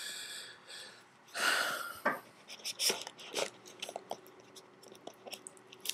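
Phone packaging being handled: a couple of brief rustles, then a scatter of light clicks and taps.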